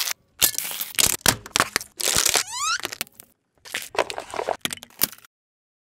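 A car tyre crushes thin plastic packaging and then paper cups, making rapid crackling and crunching snaps with a short rising squeak a little past two seconds in. The sound stops abruptly about five seconds in.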